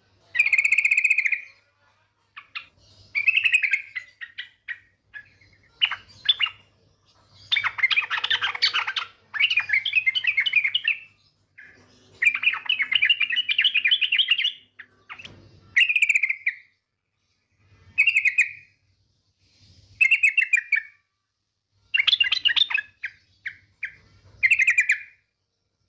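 Female yellow-vented bulbul (trucukan) calls, used as a lure to draw males into song. Short bubbly chirping phrases come every second or two, with two longer rapid chattering runs in the middle.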